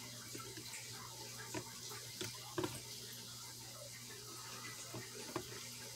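Water sloshing in a clear plastic tub as a small plastic toy monster truck is moved about in it by hand. There are a few light knocks of the toy against the tub, the loudest about two and a half seconds and five seconds in.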